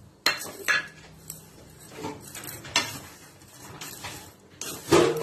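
A slotted metal spatula scraping and clinking against a metal kadai as roasted vermicelli and poppy seeds are stirred. There are a few sharp clinks, the loudest near the end.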